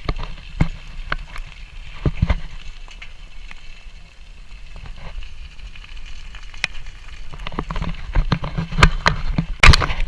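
Wind rumbling on the microphone while riding, with raindrops striking the camera as sharp crackling hits, few at first and crowding thickly near the end as the downpour arrives.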